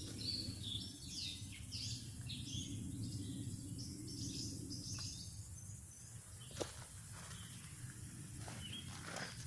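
Birds chirping and singing, a quick string of short high calls through the first half that thins out later, over a steady low background rumble. A single sharp click about two-thirds of the way in.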